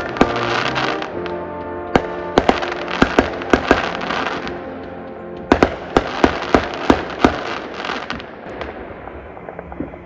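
Professional fireworks bursting in two quick volleys of sharp bangs, the first about two to four seconds in and the second about five and a half to seven seconds in. Live music plays underneath.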